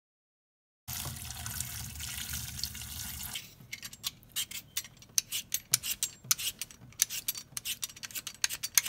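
A tap runs for about two and a half seconds. Then a vegetable peeler scrapes the skin off a pointed gourd (potol) in quick rasping strokes, several a second, lifting only the thin outer layer.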